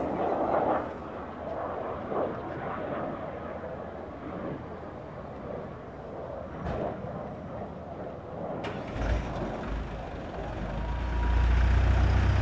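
Fuso dump truck's diesel engine running, then from about nine seconds in a deep rumble as it is revved up, growing louder near the end. The engine is raising the tipper bed to dump its load of sand.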